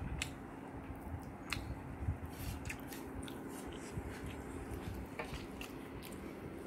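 Quiet eating sounds: fingers working rice on a plate and chewing, with scattered light clicks and taps over a steady low hum.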